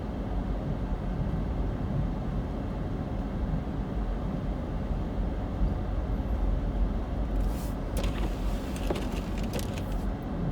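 A car being driven on a snowy road, heard from inside the cabin: a steady low rumble of engine and road noise. A cluster of sharp clicks and crackles comes in from about seven seconds in.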